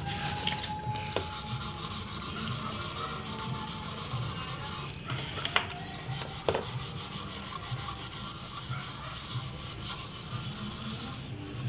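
A scouring pad is scrubbing a brass altar candlestick by hand in rapid, even rubbing strokes, making a steady scratchy rasp. A couple of sharp clicks come around the middle.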